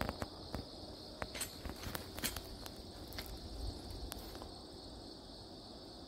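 A steady, high-pitched chorus of late-summer insects trilling, with scattered sharp clicks and taps over the first four and a half seconds.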